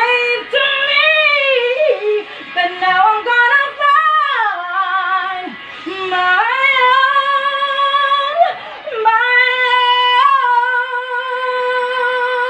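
A woman singing solo with melodic runs that glide up and down, then holding one long note with vibrato from about nine seconds in.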